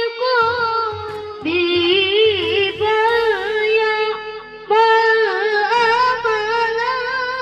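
A boy qori reciting the Qur'an in the melodic tilawah style in a high voice through a microphone, holding long notes with fast wavering ornaments. He pauses briefly for breath about one and a half seconds in and again about four and a half seconds in.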